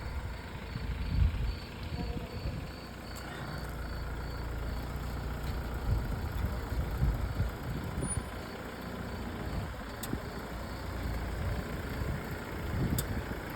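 A vehicle on the move: steady low engine and road rumble with uneven swells.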